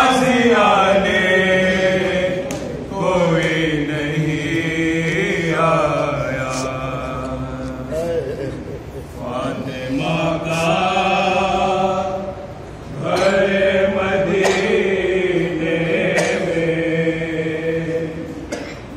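A man's unaccompanied voice chanting an Urdu marsiya, a mourning elegy, in long drawn-out melodic phrases with short breaks between them.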